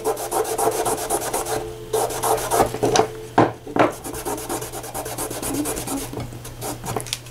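A damp rag rubbed in quick back-and-forth strokes along the edge of a painted coaster-set piece, fastest over the first two seconds, then slower and uneven. The rubbing distresses the edge by wearing off paint that is only dry to the touch.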